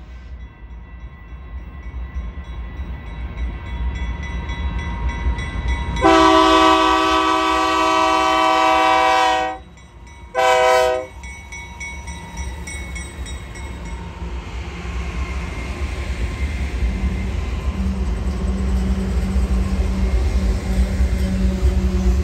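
BNSF diesel freight locomotive horn sounding for a grade crossing: a long chord blast of about three and a half seconds, then a short one. Under it runs the rumble of the passing locomotives and freight cars, which grows steadily louder after the horn stops.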